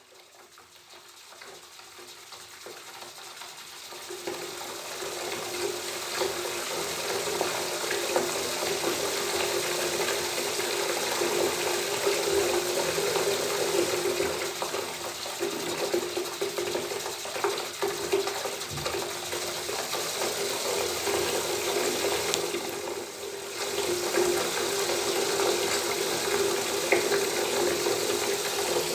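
Bathtub tap running open, water pouring steadily into the tub. It fades in over the first four seconds or so, then holds level with a low steady tone under the splashing.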